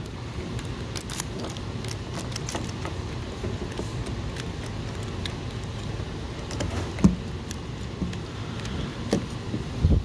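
Small clicks and rattles of a VW ignition lock assembly being turned over and worked in the hands, with a sharper knock about seven seconds in and a couple more knocks near the end, over a steady low hum.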